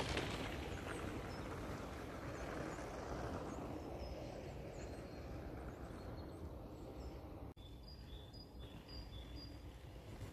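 Faint outdoor ambience with small birds chirping: short high chirps come again and again over a low steady rush.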